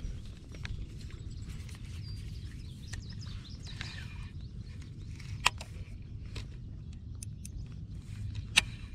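Small clicks and knocks of a baitcasting rod and reel being handled, with two sharper clicks, one about halfway through and one near the end, over a steady low rumble.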